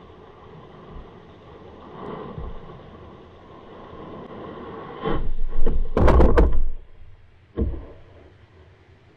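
Muffled thuds and knocks picked up through an underwater camera housing, loudest in a cluster about five to seven seconds in with one shorter knock just after, over a low rumble: the bait rig and camera being bumped as a small shark comes in to the bait pole.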